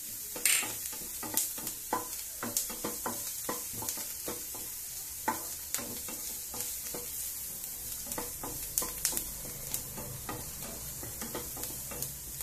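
Chopped onions and green chillies sizzling in butter in a non-stick kadai, stirred with a wooden spatula that scrapes and knocks against the pan in quick, irregular strokes over a steady frying hiss.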